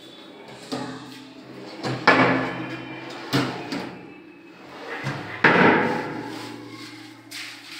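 Kitchen cabinet drawer holding a stainless-steel wire basket, pulled out and pushed shut on its runners several times. The wire basket rattles and the drawer front knocks closed, loudest about two seconds in and again just past five seconds.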